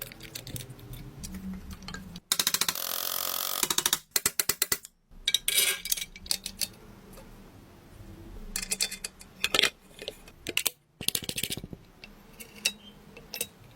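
Metal tool parts being handled in a workshop: scattered clicks, knocks and clatter, with a rapid rattling run for about two seconds near the start.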